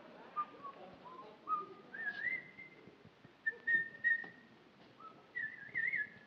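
A man whistling a tune through his lips, short notes at changing pitches, stepping up higher about two seconds in and warbling into trills near the end.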